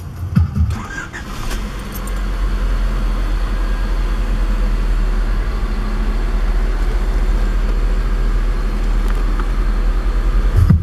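1996 Honda Civic's 1.4-litre D14A2 four-cylinder engine running with the car standing still, heard from inside the cabin as a steady low rumble.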